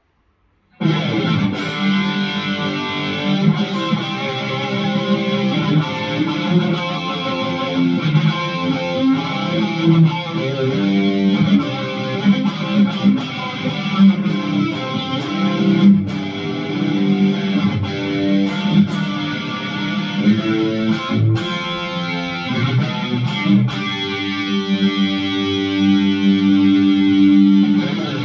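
ESP LTD SN-1000 electric guitar playing rhythm parts through a distorted tone, starting abruptly about a second in.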